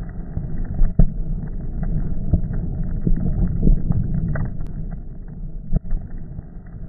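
Steady low rumbling wind noise on a phone microphone, with a few sharp pops and cracks scattered through it: one about a second in, one midway and one near the end.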